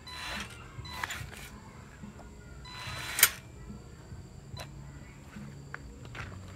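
Scattered mechanical clicks and short scraping noises, with one sharp, loud click about three seconds in.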